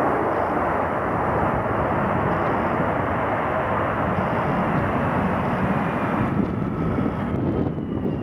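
Jet airliner passing close on its landing approach: a loud, steady rush of jet engine noise. In the last couple of seconds the rush thins and a slowly falling engine whine comes through as the aircraft moves away.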